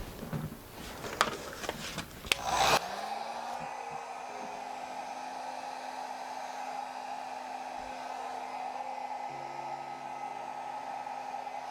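A few clicks and knocks of handling, then about three seconds in a hair dryer switches on, its motor spinning up quickly, and runs steadily, blowing air.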